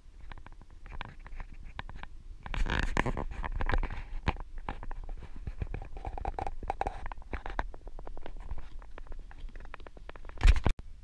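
Handling noise on a handheld camera's microphone as it is carried along a path: irregular scratching and rubbing with scattered clicks over a low wind rumble. A louder burst near the end cuts off sharply.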